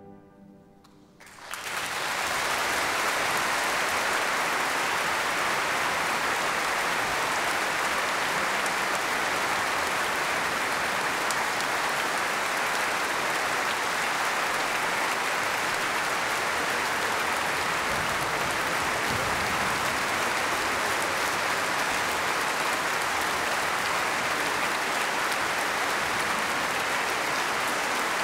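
Large concert audience applauding, the clapping breaking out about a second and a half in as the last music dies away, then holding steady.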